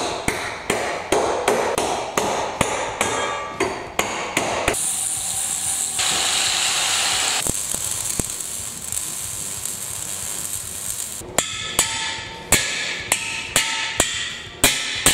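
Hammer blows on steel, about three a second, each with a short metallic ring. From about five seconds in they give way to several seconds of welding-arc hiss and crackle. Near the end the ringing hammer strikes on steel resume, a little slower.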